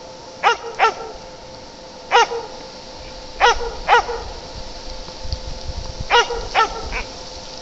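A jämthund (Swedish elkhound) barking: eight short, sharp barks in small groups of one to three, a second or two apart, over a faint steady hum.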